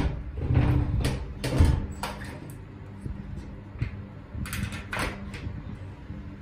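A toilet cubicle door knocking shut and rattling as it is handled by its round knob, then a small metal barrel bolt clicking and scraping as it slides across about four and a half seconds in.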